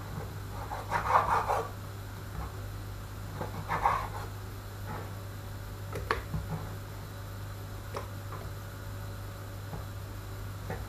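Kitchen knife cutting raw pork on a wooden chopping board, with a few sharp knocks of the blade on the board over a steady low hum. Two brief louder sounds come about one and four seconds in.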